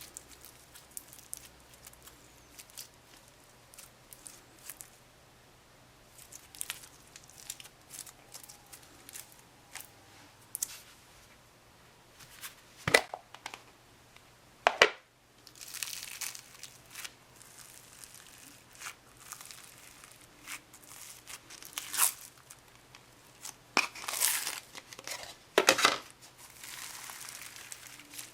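Old, dried-up crunchy slime being pulled apart and squeezed by hand: scattered crackling and tearing, with a couple of sharp snaps about halfway through and a busier run of crackling toward the end.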